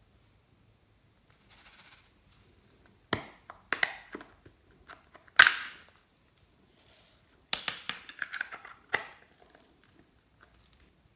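Plastic heart-shaped makeup palette being handled and opened: a run of sharp plastic clicks and snaps with soft rustling between them, the loudest snap about five and a half seconds in.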